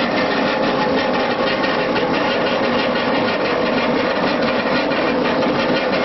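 Electric grape crusher-destemmer running steadily, its motor and rotating crusher churning through bunches of grapes as they are fed into the hopper.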